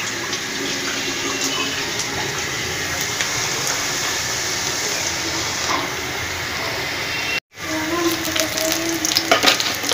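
Sliced onions and green chillies frying in hot oil in a steel karahi, a steady sizzle. The sound drops out for a moment about three-quarters of the way through, and a few sharp clicks of a spatula against the pan come near the end.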